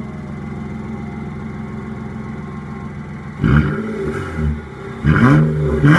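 2003 Nissan Altima 3.5's V6 running through an exhaust with the muffler removed: idling steadily, then revved briefly twice, the pitch rising and falling each time, about three and a half and five seconds in.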